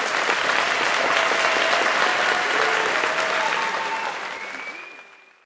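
Audience applauding, with a few voices calling out through the clapping; the sound fades out near the end.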